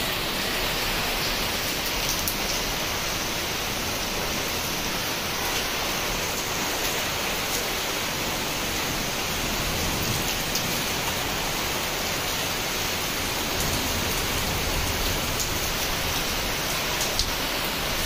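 Heavy rain pouring down steadily, an even hiss of rain falling on rooftops and balconies.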